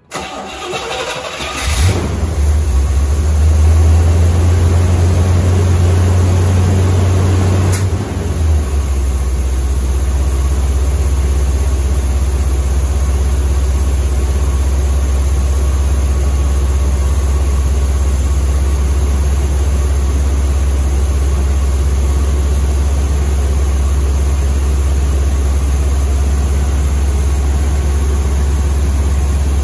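1976 Corvette Stingray's 350 small-block V8 cranking for about two seconds, catching, and running at a fast idle, then dropping to a lower steady idle about eight seconds in.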